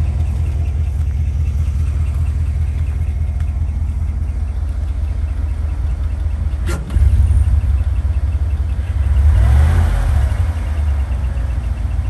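A 2015 L86 6.2-litre V8 running, with a faint, rapid repeating high-pitched squeak from a chewed-up lifter and cam lobe. A sharp click comes about seven seconds in, after which the engine is louder, and the revs rise and fall briefly near ten seconds.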